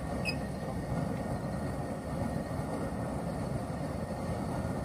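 Propane turkey-fryer burner running under a pot of canning water: a steady low rush with no breaks.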